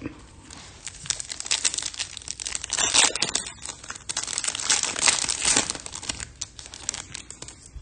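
Foil wrapper of a Topps Chrome trading card pack crinkling and tearing as it is opened and handled. Dense crackling with louder bursts about three and five seconds in.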